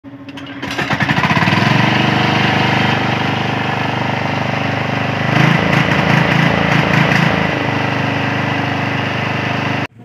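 Lifan 14 hp air-cooled single-cylinder diesel engine running at high speed. It picks up speed over the first second or so, runs unevenly for about two seconds in the middle, then steadies before cutting off suddenly near the end.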